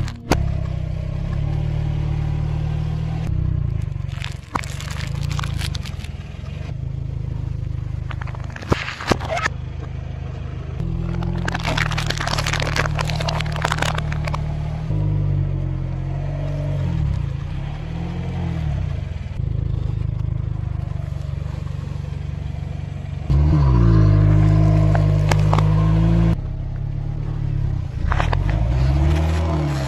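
Car engine running low and now and then revving up and down as its tyre rolls slowly over objects, with several bursts of crackling and crunching as plastic cups and bottles are crushed under it.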